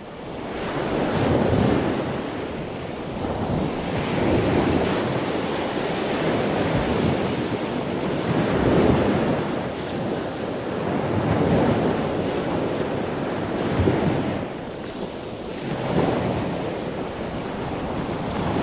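Wind buffeting the microphone over rushing water, swelling and fading every two to three seconds.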